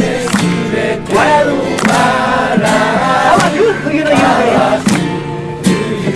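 A crowd singing a Japanese song together in unison over acoustic guitar, with hands clapping in time to the beat.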